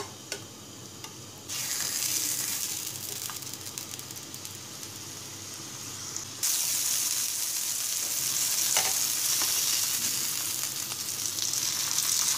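Minced-meat hamburger patty frying in hot oil in a non-stick pan: a steady high sizzle. It jumps louder about a second and a half in and again about six seconds in.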